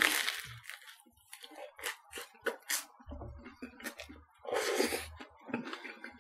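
Crusty baguette sandwich crackling as it is bitten into, followed by close chewing with small mouth clicks; the crust crackles again about halfway through.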